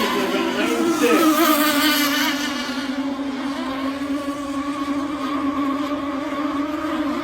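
Twin 30cc two-stroke gas engines of an RC twin-rigger boat running at speed with a high, buzzing note. The pitch rises briefly about a second in, then the note holds steady and grows somewhat quieter.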